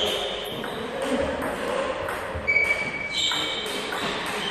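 Table tennis ball clicking repeatedly, roughly every half second, while players between points bounce it. Rubber-soled shoes squeak sharply on the sports hall floor a few times.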